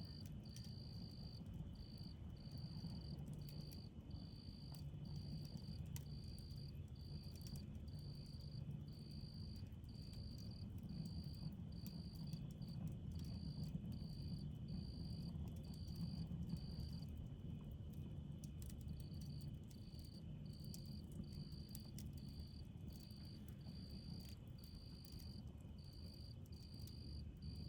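Night insects calling on a prairie: one insect sings high-pitched trills about once a second, stopping for about two seconds past the middle, over a fainter steady insect drone. A low rumble runs underneath.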